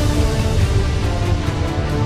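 Dramatic trailer score: a heavy low rumble under several sustained held notes.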